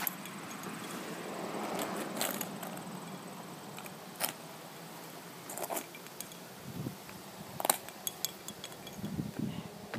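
A handful of sharp clicks and light scrapes at uneven intervals: small broken pieces of an iPad charger's plastic plug clicking and scraping on asphalt.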